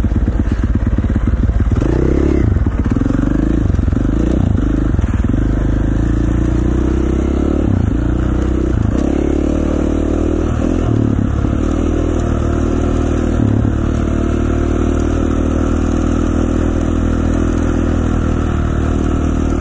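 Dirt bike engine running under load, its revs dropping and climbing again over and over as the throttle is eased and opened, then holding steady for the last few seconds.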